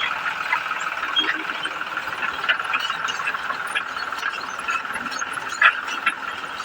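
Ford 3600 tractor working a potato harvester: a steady mechanical drone with scattered clanks and rattles, and one louder knock near the end.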